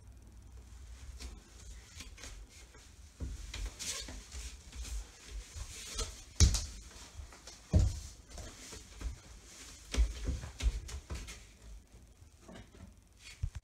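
Scattered thumps, knocks and cloth rustles of a small child climbing down and back up a metal folding step stool and stuffing clothes into a top-loading washing machine, with the loudest thumps about six and a half and nearly eight seconds in.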